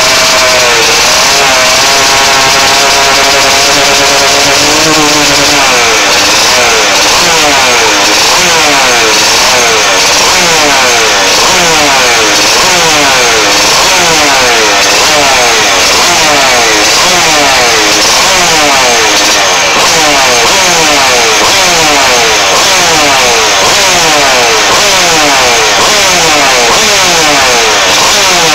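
Vespa scooter's two-stroke single-cylinder engine running very loud close up. It holds a steady rev for the first few seconds, then is revved over and over, the pitch climbing and dropping in quick repeated blips.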